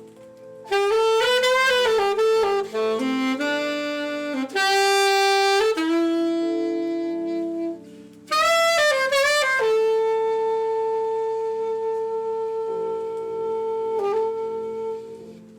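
Saxophone playing a slow jazz melody over sustained backing chords: quick runs of notes, then one long held note from about ten seconds in.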